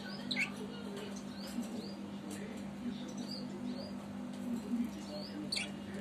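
Budgerigars chirping: a scattered series of short, high chirps, each a quick sweep in pitch, over a steady low hum.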